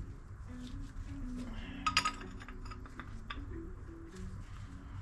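Background music with a simple stepping melody, over a few light metallic clinks of parts being handled; the loudest clinks come about two seconds in.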